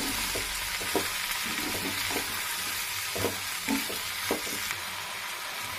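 Onions, tomatoes, grated coconut and whole spices sizzling in oil in a heavy black kadai while a spatula stirs them, with short scrapes and knocks of the spatula against the pan every second or so. This is the masala being sautéed before it is ground.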